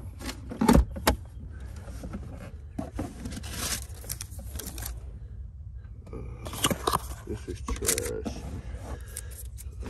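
Handling noise in a pickup's cab: fabric rustling against the phone's microphone, a few loud knocks a little under a second in, then more bouts of rustling and clattering as items are moved about.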